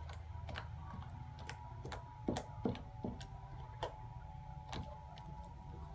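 Borax slime being pressed and stretched by hand, giving irregular wet clicks and pops, the two loudest close together a little before the middle.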